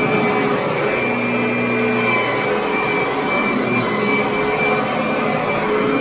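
Upright vacuum cleaner running steadily as it is pushed over carpet: a constant motor whine over a rush of air.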